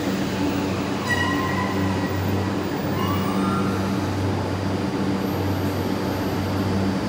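Electric train running through the station: a steady rumble with a low hum, a brief motor whine about a second in and a short rising whine around three seconds in.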